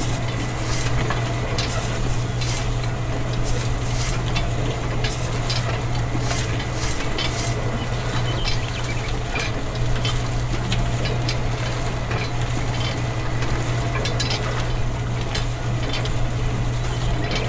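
Small toy gear motors of a miniature wheat-sieving machine running with a steady hum, while wheat grains rattle across its wire-mesh sieve in a dense stream of small ticks.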